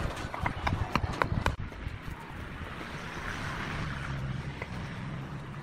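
Hexagonal concrete paver blocks knocking against one another as they are handled and set down: a quick run of sharp clacks in the first second and a half, then a low steady hum.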